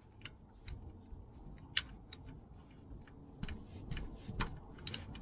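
Faint, irregular light clicks and taps of a 17 mm socket ratchet working an oil drain plug loose, about eight in all and unevenly spaced.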